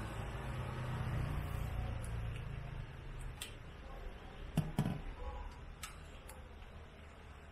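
A low steady hum that fades away, with a few scattered light clicks and a sharper double knock about four and a half seconds in.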